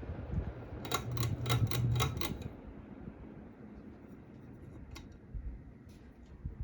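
Hampton Bay Carousel ceiling fan running with a steady low motor hum. About a second in comes a quick run of about six sharp clicks, after which the hum drops and the sound grows quieter.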